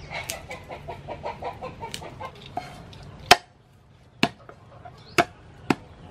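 A chicken clucks in a quick run of notes for the first two and a half seconds. Then a cleaver strikes a wooden chopping board four or five times, about a second apart, cutting garlic cloves. The first strike is the loudest.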